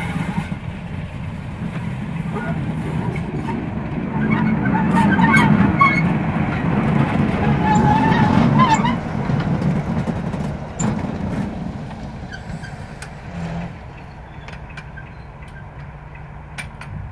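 Class 33 diesel locomotive's Sulzer eight-cylinder engine running as it passes close by, the rumble growing to its loudest midway and then fading as it draws away. Brief squeaks as it goes past, and a few sharp clicks near the end.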